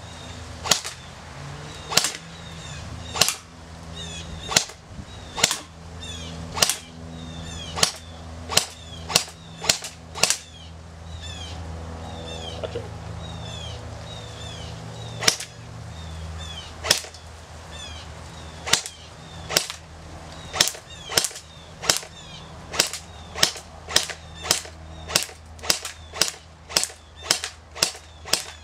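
Airsoft G36 rifle firing single shots on semi-auto, each a sharp snap. There are about thirty shots at an uneven pace, with a break of several seconds near the middle and quicker shots toward the end.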